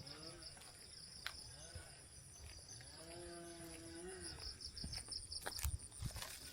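An animal's long, even-pitched call heard twice, about three seconds apart, over a steady pulsing chorus of insects. A few footsteps sound near the end.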